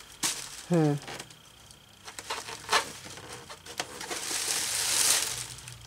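Plastic wrapping crinkling and rustling as it is pulled away from a statue, with a few sharp crackles; the rustling swells about four seconds in.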